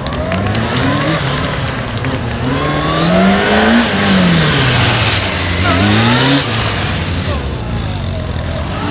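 Police motorcycle engine revving up and easing off as the rider accelerates and brakes through tight corners: a long climb in pitch peaking a few seconds in, a fall, then a shorter rise about six seconds in that cuts back sharply.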